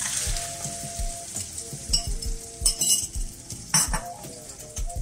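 Beaten eggs sizzling as they hit a hot non-stick frying pan of fried ham and hot dog slices. A utensil clinks and scrapes against the pan a few times.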